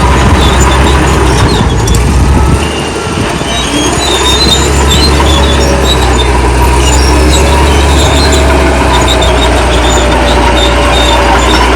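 Old crawler bulldozer's diesel engine running steadily under load, with intermittent high-pitched squeals from its steel tracks. The engine dips briefly about three seconds in.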